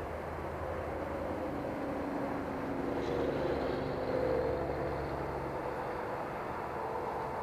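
FMS T-28 Trojan 1400mm radio-controlled warbird model flying past, its drone swelling to its loudest about four seconds in and easing off again.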